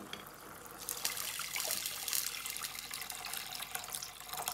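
Liquid poured in a stream from a metal vessel into a pot already holding chicken broth, splashing into the liquid from about a second in.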